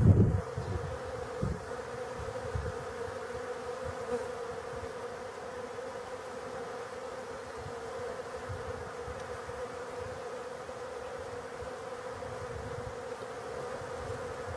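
Many honeybees buzzing as they fly in and land on a drinker, an even hum that holds steady in pitch.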